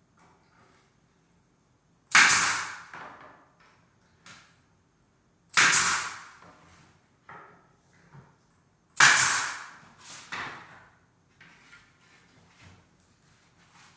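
Pneumatic nail gun firing three times, about three and a half seconds apart, each shot a sharp bang with a short trailing hiss, driving nails into door casing. Lighter knocks follow each shot.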